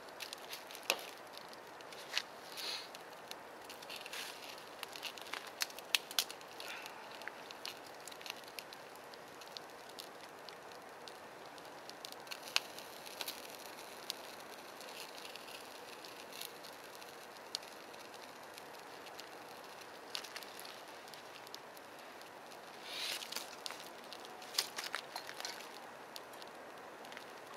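Small fire of soaking-wet, ice-covered kindling lit with a pine fatwood firestarter, crackling and popping over a faint steady hiss. The snaps come thickest a few seconds in and again near the end.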